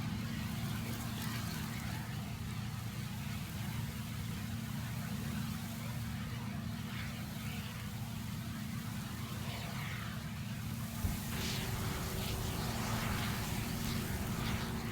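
A farm machine's engine running steadily, an even low hum. About eleven seconds in there is a faint click, and a faint steady higher tone joins the hum.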